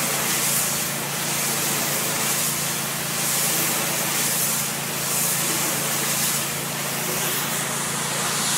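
Pressure washer's high-pressure water jet spraying against a building wall, a steady hiss that swells and fades as the wand sweeps, over the steady hum of an engine.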